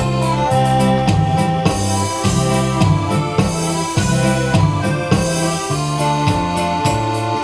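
Electronic keyboard playing a guarânia melody in held notes over repeating bass notes and a steady percussion beat.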